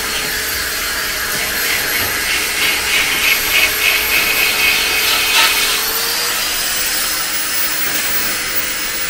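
Handheld power grinder running steadily against the steel of a Mazda MX5 Mk3's rear arch and sill, its whine rising slightly about six seconds in: grinding back rusted metal during sill and arch rust repairs.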